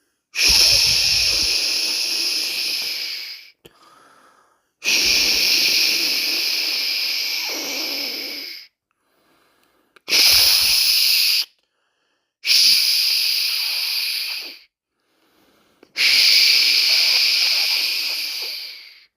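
A person shushing a baby with long 'shhh' sounds, five times, each lasting a couple of seconds and trailing off slightly, with short pauses between them.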